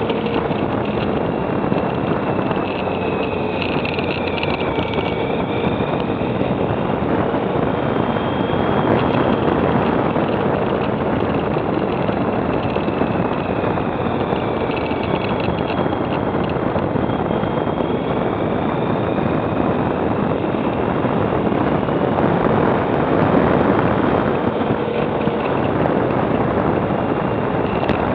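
Motorcycle on the move: steady wind rush over the camera microphone with the engine note underneath, its pitch rising and falling as the throttle is worked.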